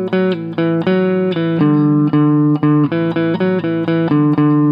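Gibson Les Paul 100 electric guitar playing a slow single-note melody, each note plucked and held: the song's melody moved up to the fifth, starting on D, as a chorus harmony line.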